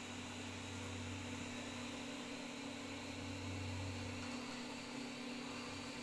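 Xiaomi Mi Robot Vacuum-Mop 2 Pro running: a steady hissing whir from its suction fan, with a low hum that swells and fades twice as it drives along the wall.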